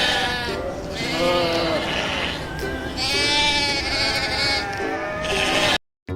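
Bleating from sheep or goats: a run of loud, wavering calls, one after another and partly overlapping, that breaks off abruptly near the end.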